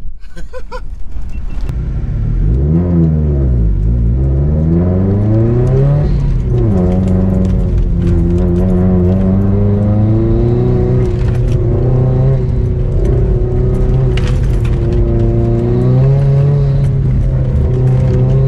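Car engine heard from inside the cabin, driving on a dirt course: the revs fall and climb over the first few seconds, drop sharply about six and a half seconds in as it shifts up, then hold a steady drone, with a step up in pitch near the end.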